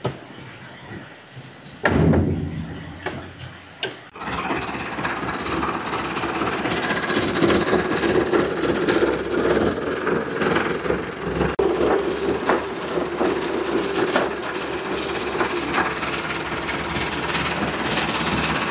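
A Ferguson tractor's engine comes in about four seconds in and runs steadily as the tractor drives off. A loud knock sounds about two seconds in.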